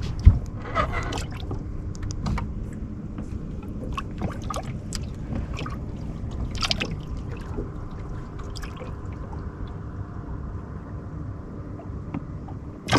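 Water trickling and gurgling around a small fishing boat, over a steady low rumble, with scattered clicks and knocks from handling gear and one sharp thump just after the start.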